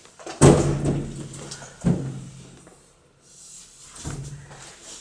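Footsteps on wooden stairs: three slow, heavy thuds about two seconds apart, the first the loudest.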